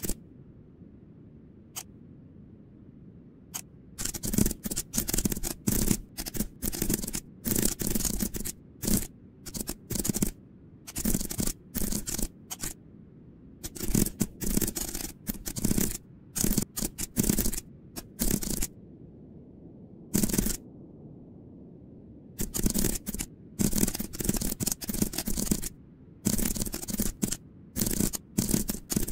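Computer keyboard typing: quick runs of keystroke clicks with short pauses between them, as lines of code are entered.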